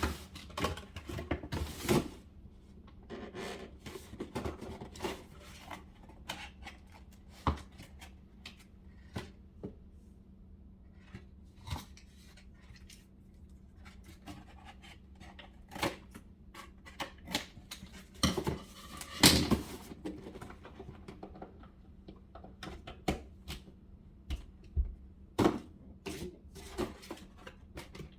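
Hands handling power cables, plastic plugs and a cardboard box, making irregular clicks, taps and knocks over a steady low hum.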